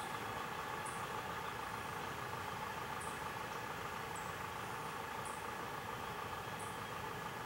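Steady background hum of distant traffic, with short, very high chirps about once a second.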